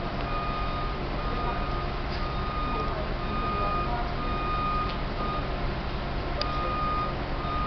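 A high electronic beep repeating about once a second, each beep a short steady tone, over a steady low rumble like distant engine or traffic noise.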